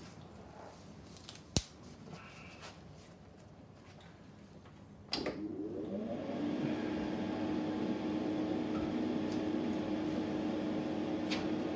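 A hobby spray booth's extractor fan switched on with a click about five seconds in, its motor hum rising in pitch as it spins up and then running steadily. Before that, a few small handling clicks and one sharp click.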